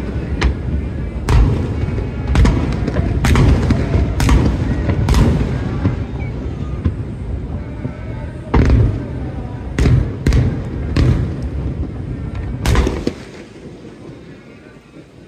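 Fireworks shells bursting in quick succession: many sharp bangs over a continuous low rumble, which dies down about thirteen seconds in.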